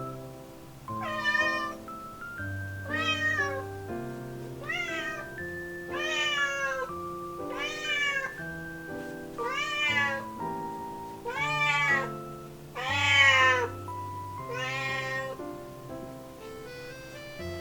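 A young cat meowing repeatedly, nine meows about every one and a half to two seconds, each rising then falling in pitch, the loudest near the end; the meows are of the cat whose voice the owner says is breaking. Background music plays throughout.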